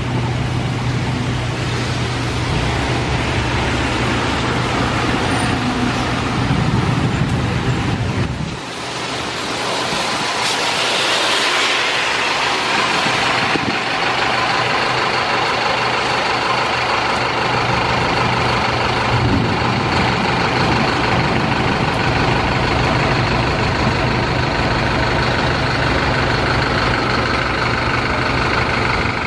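City buses and road traffic on a wet avenue: steady engine noise with vehicles passing, a louder hiss of a passing vehicle a few seconds after a brief dip about eight seconds in, and a bus engine close by near the end.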